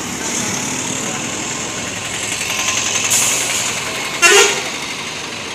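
A vehicle horn gives one short toot about four seconds in, over a steady hiss.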